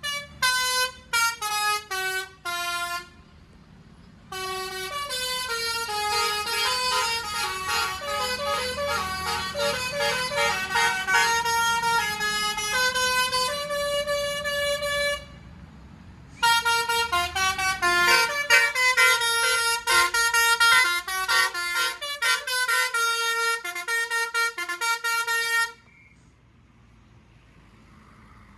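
Bus 'telolet basuri' melody horn playing a tune: a quick run of short falling notes, then two longer stepping melodies with a pause of about a second between them. It stops a few seconds before the end.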